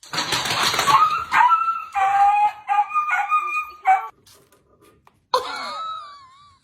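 A dog vocalizing: a noisy scuffle-like burst, then a run of short, high-pitched whining yips, and a longer wavering whine that glides up and down starting about five seconds in.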